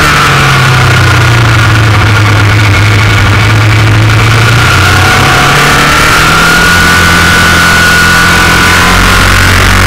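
Motorcycle engine running loudly as the bike is ridden at speed, its pitch holding fairly steady with slow rises and falls, over the rush of wind at a camera mounted low on the fairing.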